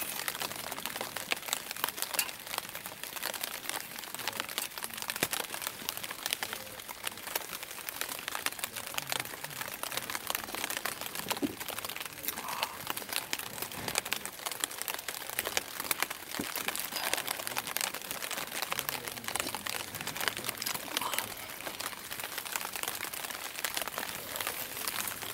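Steady crackle of many small irregular ticks on nylon tent fabric, close to the microphone.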